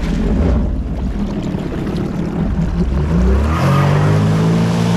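Sea-Doo jet ski's Rotax engine revving up as the craft takes off, its note climbing about three seconds in and then holding steady at speed, with the hiss of jet wash and spray.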